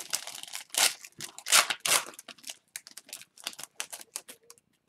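Foil trading-card pack wrapper torn open and crinkled by hand. Several loud rips and crackles come in the first two seconds, then lighter crackling and clicking as the cards are slid out of the wrapper.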